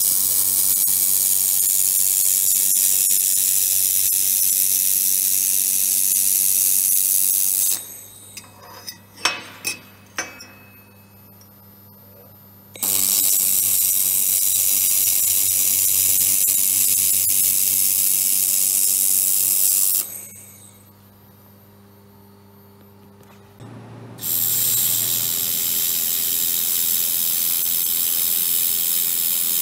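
1.5 kW handheld laser welder running weld passes on sheet metal: a loud steady hiss with a low machine hum under it. It comes in three spells of several seconds each, with two quiet pauses between them. The first pause holds a few clicks.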